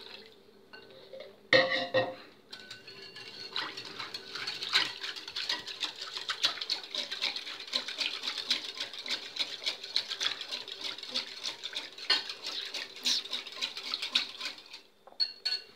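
Metal wire whisk beating liquid gelatin in a glass bowl: fast, continuous clinking and scraping of the wires against the glass. A single knock comes about one and a half seconds in, just before the whisking starts.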